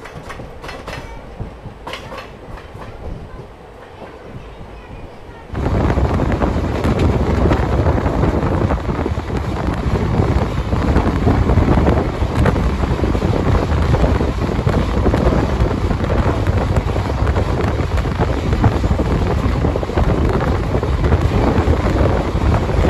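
Indian express passenger train running, heard from an open coach doorway: wheels rolling and clattering over the rail joints with a heavy steady rumble. The sound turns suddenly much louder about five seconds in and stays loud.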